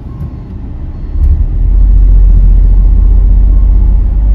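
Deep, loud diesel engine rumble of a heavy tipper truck close by, coming in about a second in and holding steady as the truck pulls away, heard from inside a car.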